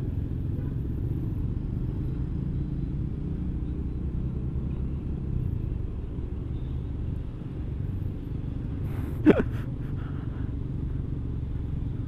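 Steady low rumble of a scooter ride heard from a handlebar-mounted camera: the engine running at low speed, mixed with wind and road noise. About nine seconds in there is one short, sharp sound.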